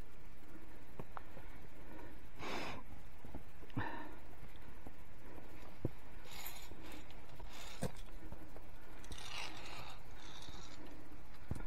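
Short scraping and rustling sounds with a few sharp clicks, over a steady low rumble: a climber's via ferrata carabiners and steel cable, boots and gear moving on limestone rock.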